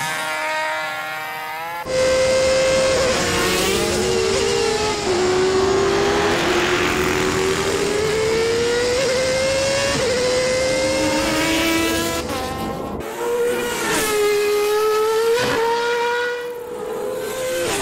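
Cartoon wasp's wing buzz in flight: a loud pitched drone that starts about two seconds in and slides slowly up and down in pitch as the insect moves about.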